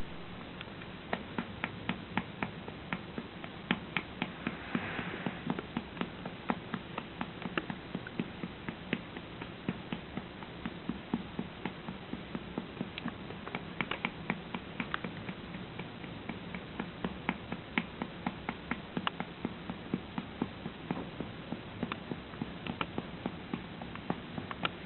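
Hand patting a baby's back to bring up a burp: quick, uneven pats, about three or four a second, keeping on without a break.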